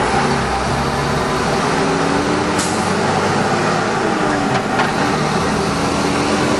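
Heavy street traffic with a diesel truck engine running close by: a steady drone with a low hum that drifts slightly in pitch, heard from inside a car, with a couple of brief sharp sounds partway through.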